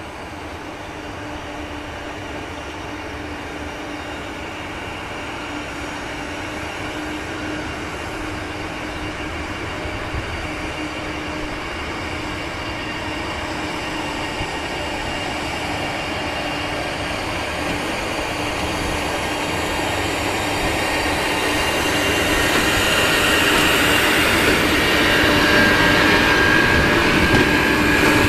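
HXD1D electric locomotive running slowly on depot track and drawing near, its steady low hum with higher whining tones growing louder throughout and loudest as it comes alongside.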